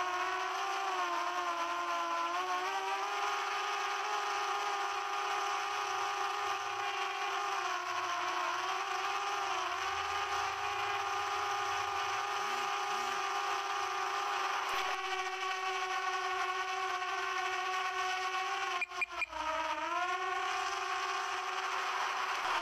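Quadcopter drone propellers whining steadily in flight, a stack of tones that drifts slightly up and down in pitch as the motors adjust. The sound briefly drops out a little past three-quarters through.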